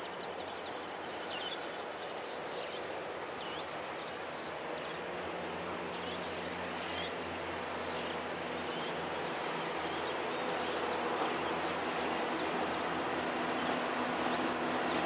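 Many birds chirping in short, high, downward-sweeping calls over a steady outdoor hiss, with the low drone of an approaching diesel railcar engine growing slowly louder.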